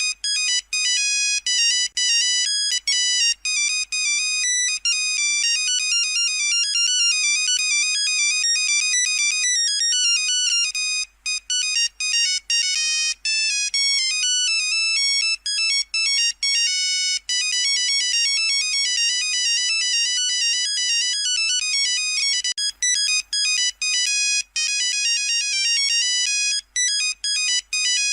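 Nokia 3310 monophonic ringtone playing: quick runs of beeping notes, thin and buzzy with many overtones, broken by short gaps between phrases.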